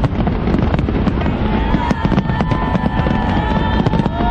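Fireworks going off in a rapid, continuous barrage of sharp bangs and crackles, with music with long held notes starting up about a second and a half in.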